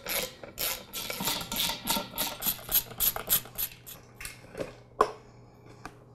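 Socket ratchet clicking in a quick steady run, about five clicks a second, as the bolts holding the air compressor pump to the tank are turned out. The clicks then slow and thin out, and there is a single sharp metal knock about five seconds in.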